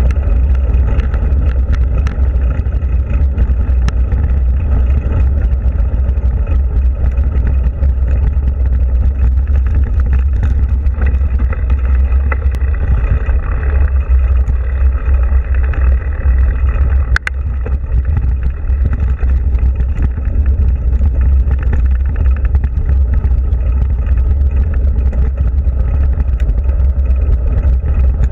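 Mountain bike rolling at speed over a gravel and dirt trail, heard through a bike- or helmet-mounted action camera: a steady heavy wind rumble on the microphone over the crunch and rattle of tyres and bike on the loose surface. A single sharp click about seventeen seconds in.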